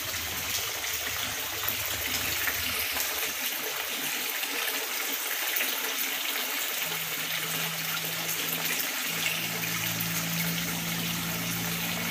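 Water pouring from a pipe into a koi tank, a steady splashing rush of falling water. A low steady hum joins about seven seconds in.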